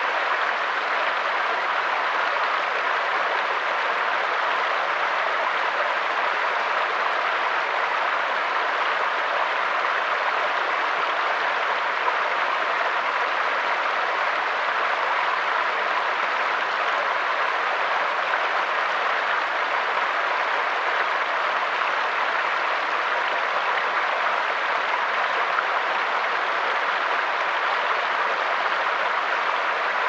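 Small rocky stream running over stones and little cascades: a steady, even rush of water.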